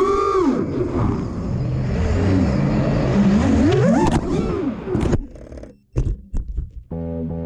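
FPV quadcopter's brushless motors whining, sweeping up and down in pitch as the throttle changes. About five seconds in the whine breaks into a few sharp knocks with brief dropouts, and electronic music starts near the end.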